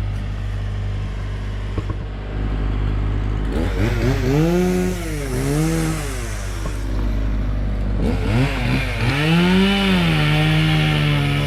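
A low, steady engine hum, then a gasoline chainsaw revved up and down: from about three and a half seconds in its pitch rises and falls twice, then climbs again and holds at high revs near the end, typical of cutting through wood.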